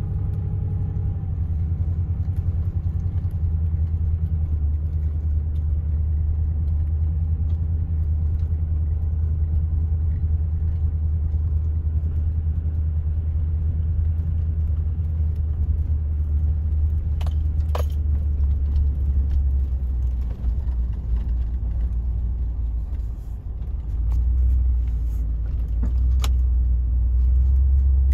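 Vehicle heard from inside the cabin, driving slowly over a mowed grass track, its engine and tyres making a steady low rumble. The rumble eases briefly about two-thirds of the way through and comes back. A couple of sharp clicks come from the cab.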